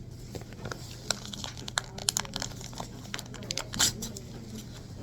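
Scattered crinkling and sharp clicks, like paper or a wrapper being handled, loudest about four seconds in, over a steady low hum.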